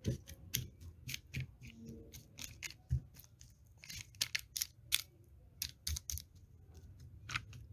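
Seasoned bacon and chopped green bell pepper being mixed and spread out by hand on parchment paper in a glass baking dish: irregular crinkling and crackling of the paper with a few soft knocks.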